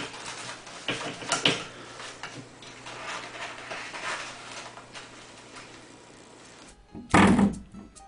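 Faint scattered taps and rattles as a cat paws at a toilet-paper roll on its holder, then about seven seconds in a coiled-spring doorstop is flicked and twangs loudly, ringing briefly.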